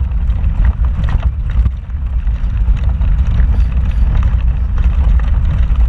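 Off-road vehicle crawling over a rocky trail: a steady low engine and drivetrain rumble, with scattered knocks and rattles as the tyres climb over rocks.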